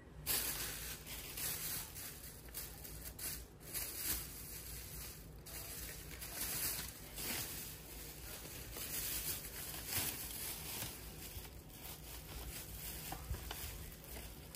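Shopping bags and product packaging rustling and crinkling in irregular bursts as items are handled close to the microphone.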